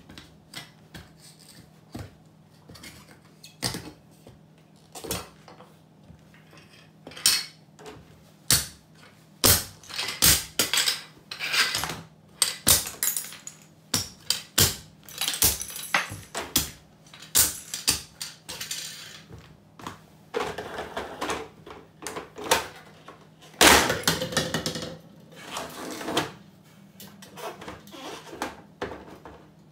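Rubber-soled Cofra safety boots stamping on hard plastic toys, which crack and snap with broken pieces clattering on the tile floor: a long run of separate sharp cracks, with a denser, louder stretch of crunching about three-quarters of the way through.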